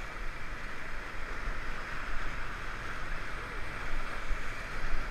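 River water rushing around a raft, a steady hiss, with a low rumble of wind on the microphone.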